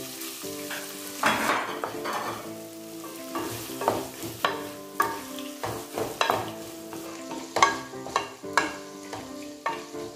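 Wooden spatula stirring and scraping chopped onion, tomato and curry leaves sizzling in coconut oil in a pan, in irregular strokes, with background music underneath.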